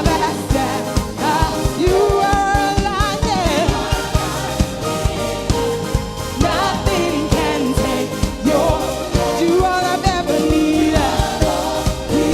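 Live worship band playing an upbeat song to a steady drum beat, with voices singing over it.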